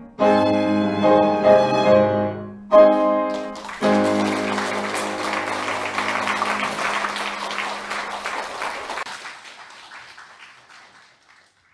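Violin with piano accompaniment playing the closing notes and final chord of a piece, which ends about four seconds in. The congregation then applauds, the clapping dying away near the end.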